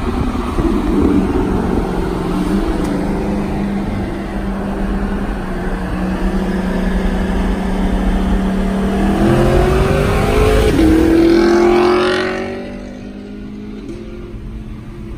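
2018 Chevrolet Camaro SS's 6.2-litre V8 through an MBRP axle-back exhaust, cruising with a steady drone. About nine seconds in it accelerates hard with a rising note, broken by one upshift of its eight-speed automatic, then fades as the car pulls away ahead. Wind and road noise lie underneath.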